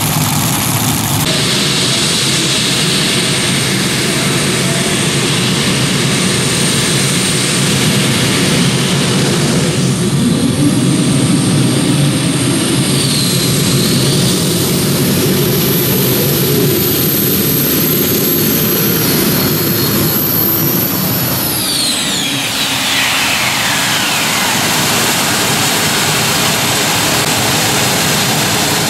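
Gas-turbine engine of a modified pulling tractor running under full load, with a loud high whine that climbs slowly in pitch and holds over heavy engine noise. About 21 seconds in, the whine falls steeply as the turbine spools down.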